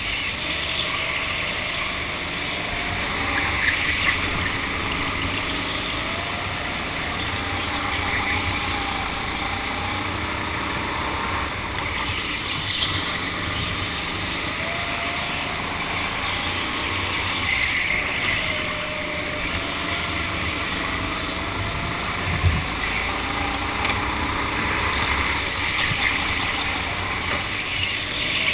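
Go-kart motor running under a steady rush of noise as the kart laps an indoor track, its pitch rising and falling with speed through the bends. A single short thump about three-quarters of the way through.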